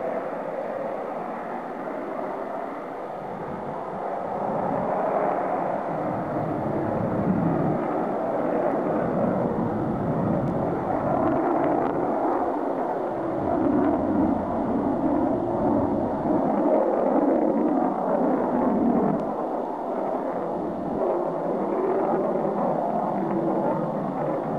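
F-15E Strike Eagle's twin turbofan engines heard from the ground as the jet climbs steeply away on a quick-climb departure: a continuous rushing jet noise that swells and eases a little.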